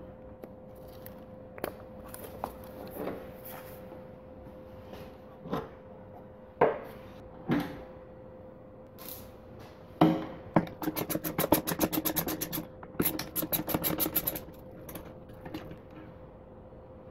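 Hand tools and metal parts being handled while a motorcycle is taken apart: scattered knocks and clinks, then two runs of rapid, even clicking about ten seconds in, with a faint steady hum underneath.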